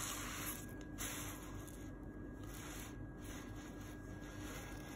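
Quiet room tone: a faint hiss with a steady low hum and a thin higher whine, and one light tap, likely the phone or pen against the notebook, about a second in.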